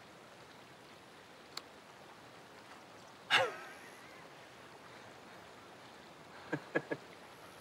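Quiet steady background hiss. A short vocal exclamation falls in pitch about three and a half seconds in, and three quick short vocal sounds come near the end.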